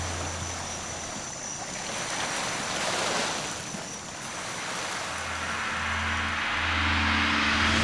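Small waves washing on a shore, swelling and easing, with a low steady drone underneath in the second half.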